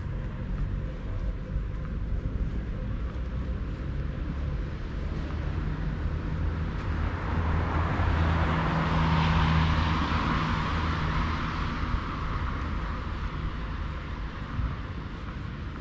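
Steady low traffic hum, with a vehicle passing that grows louder to a peak about nine seconds in and then fades away.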